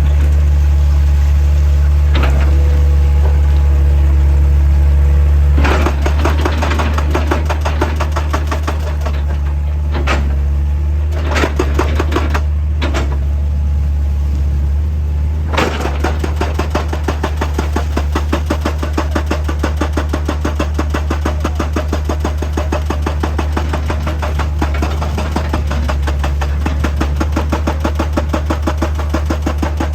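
Heavy diesel machinery running steadily with a deep engine hum, joined by rapid, evenly repeated knocking against rock that starts and stops in short runs and then keeps going steadily from about halfway through.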